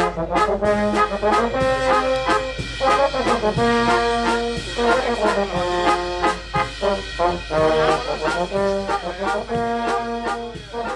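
Instrumental brass music: trumpets and trombone playing a melody over a steady beat, an instrumental passage of a German-language song.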